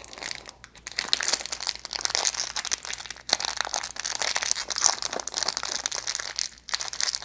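Clear plastic candy wrapper crinkling and crackling as it is peeled and twisted open by hand, with a couple of brief pauses.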